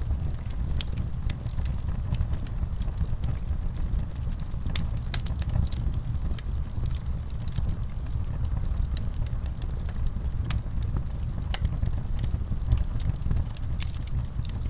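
Wood fire burning in a fireplace: a low, steady rumble with frequent irregular crackles and sharp little pops of the burning wood.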